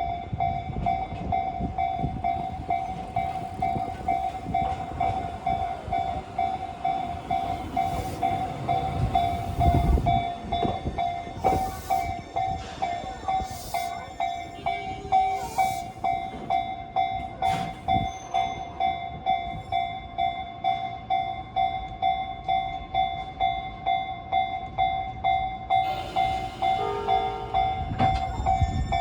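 Japanese level-crossing alarm ringing steadily in an even, repeating electronic ding, with low rumbling from a train standing at the crossing. Near the end a Tobu 30000-series train sounds a short horn blast over the ringing.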